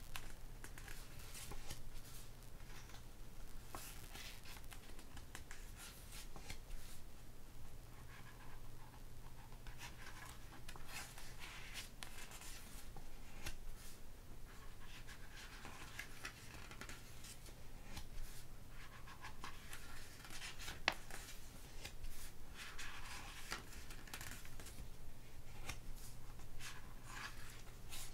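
Pages of an album photobook turned by hand: paper rustling and sliding in short irregular bursts, with scattered soft ticks, over a faint steady low hum.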